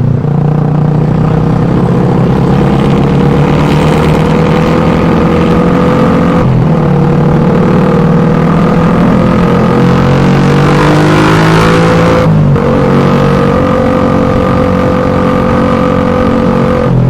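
Suzuki Satria FU 150 motorcycle's single-cylinder four-stroke engine and exhaust running under load, its pitch climbing slowly. The sound dips briefly twice, about six and twelve seconds in, then holds steady near the end.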